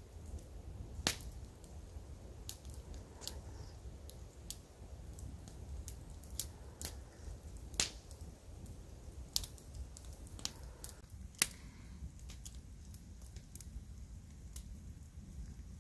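Campfire of old wooden boards crackling, with irregular sharp pops and snaps, a few louder than the rest, over a low steady rumble.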